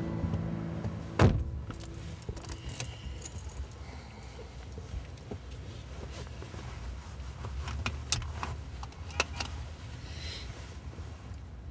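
Small clicks and rattles inside a parked car over a low steady rumble, with one sharp thump about a second in.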